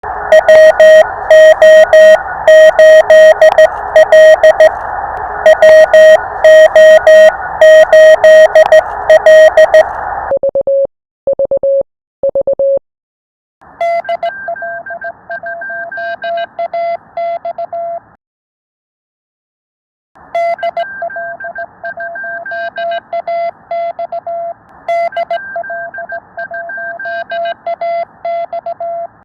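Morse code (CW) callsigns sent as a single tone keyed on and off, heard over radio receiver hiss. About ten seconds in comes a short run of cleaner, lower-pitched Morse tone. The keying stops for about two seconds past the middle, then resumes.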